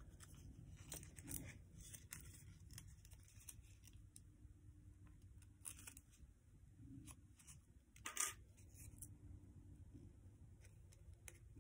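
Faint, sparse rustles and crinkles of paper being curled and creased by hand, with one louder short crackle about eight seconds in.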